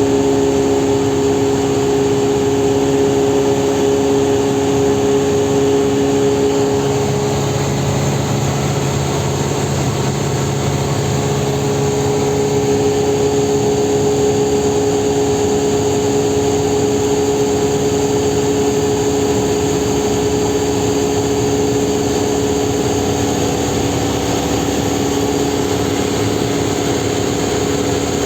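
Cessna 172R's four-cylinder Lycoming engine and propeller running steadily in flight, a loud constant hum whose tone shifts slightly between about seven and thirteen seconds in.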